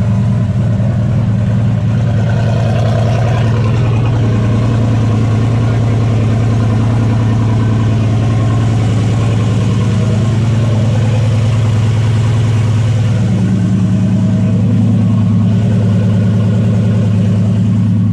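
Turbocharged 5.3 LS V8 in a 1964 Chevelle running steadily at idle, just started after the transmission bell housing was reseated flush to stop a clicking and ticking. Its note grows deeper and fuller about thirteen seconds in.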